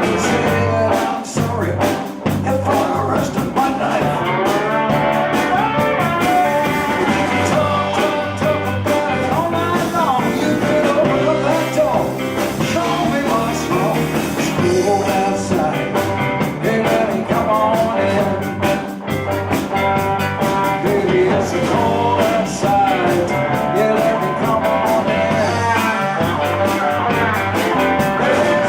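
Live blues band playing, with a steady beat.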